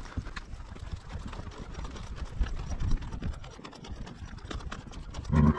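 Horse walking, its hoofbeats heard close from the saddle over a low rumble of movement. A brief, louder sound comes near the end.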